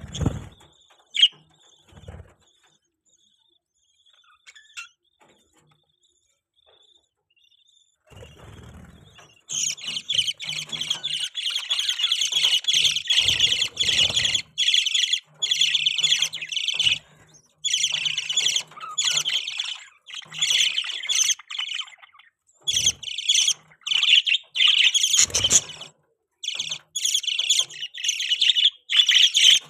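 Pet budgerigars chirping and chattering. For the first third there are only a few faint chirps and low thumps; then comes a dense, continuous warbling chatter in runs broken by short pauses.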